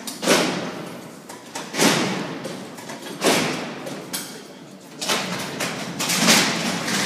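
Sliding steel prison cell doors clanging open and shut. Five heavy metal impacts come about a second and a half apart, and each rings on and dies away over about a second.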